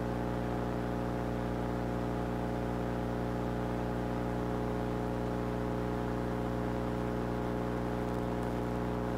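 Steady electrical buzzing hum of many even tones at one constant level, unchanging throughout: a recording fault standing in for audio that was lost.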